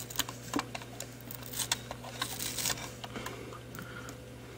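Small clicks and light scraping of a plastic pry tool working under an adhesive glide pad on the plastic underside of a Logitech G602 mouse, over a steady low hum.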